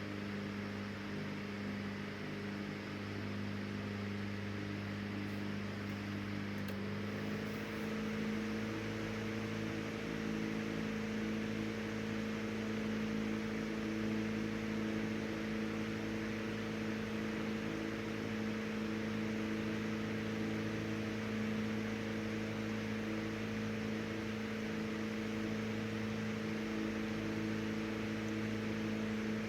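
Emerson 12-inch oscillating table fan with brass blades, model 29646, running: a steady electric motor hum over the rush of air from the blades. About seven seconds in there is a faint click, after which the hum steps slightly higher in pitch and holds there.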